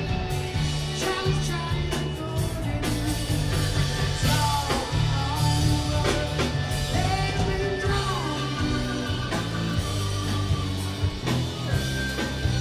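Rock music with a singer, electric guitar and a steady bass beat.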